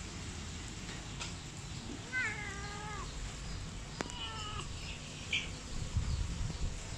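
A domestic cat meowing twice: one short call about two seconds in and another about four seconds in, over a steady low background rumble.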